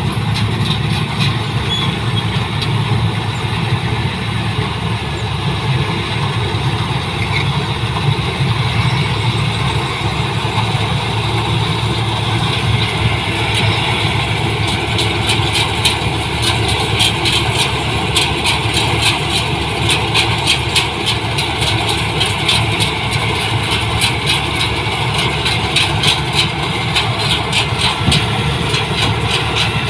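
New Holland 1545 combine harvester running steadily while harvesting rice: a low, even diesel engine note under the noise of its cutting and threshing machinery. A fast rattling grows louder from about halfway through.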